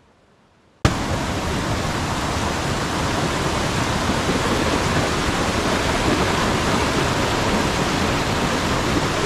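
Steady, even rushing noise that cuts in abruptly about a second in and holds without change.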